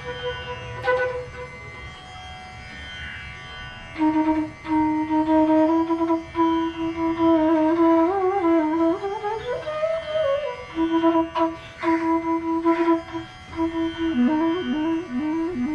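Bansuri, a long bamboo transverse flute, playing raag Patdeep over a steady drone. After a soft first few seconds it holds a low note, slides up and back down around the middle, and near the end breaks into quick repeated rhythmic notes.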